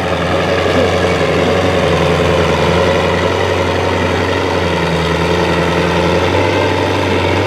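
Heavy diesel truck engine running steadily at low revs, typical of a pulling truck waiting at the track before its run.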